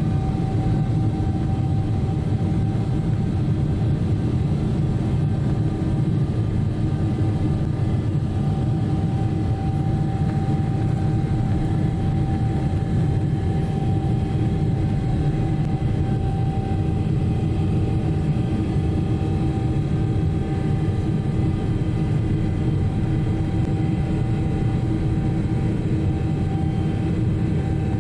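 Steady cabin drone inside a Boeing 777-300ER: jet engine and airflow noise with a low rumble and a few constant hum tones, unchanging throughout.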